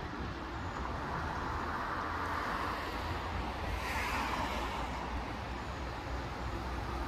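Road traffic noise: a vehicle passing, its sound swelling in the middle and fading away over a steady low rumble.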